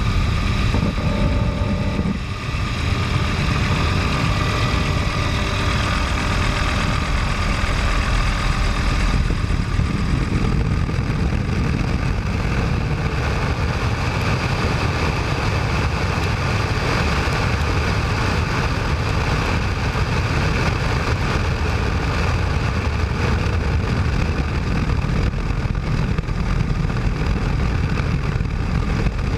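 Helicopter in flight: a steady, loud drone of engine and rotor, with a faint high whine held throughout.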